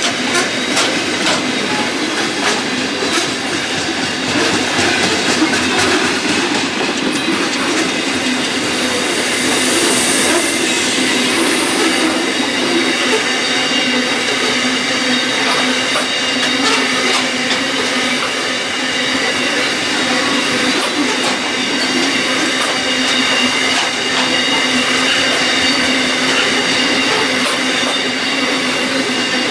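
Loaded standard-gauge grain hopper wagons rolling past at speed, a steady rumble with irregular clicks from the wheels over the rail joints. A steady high-pitched wheel squeal rings over it.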